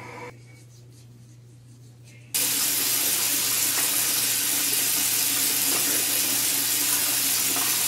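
Bathroom sink faucet turned on about two seconds in, then water running steadily into the basin.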